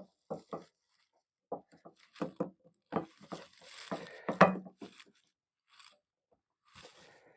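Scattered short scrapes, clicks and rustles of hands handling the light while peeling the backing off its 3M double-sided tape. A longer rustling peel comes around the middle.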